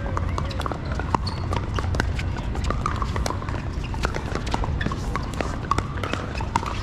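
Pickleball paddles popping against plastic balls, sharp hits at irregular intervals from several games at once, over a low steady rumble.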